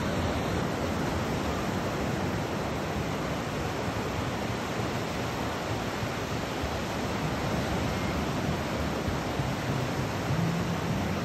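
Surf breaking and washing up a sandy beach: a steady rush of noise with no distinct breaks.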